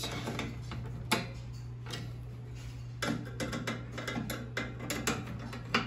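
A screwdriver tightening screws into a steel turkey-fryer stand: scattered small metallic clicks and ticks, coming thicker and faster in the second half. A low steady hum runs underneath.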